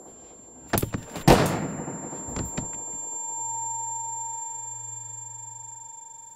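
Revolver gunshots in a small room: two sharp cracks about a second in, a louder shot with a trailing echo right after, then two fainter knocks. A steady high ringing tone over a low hum follows and slowly fades.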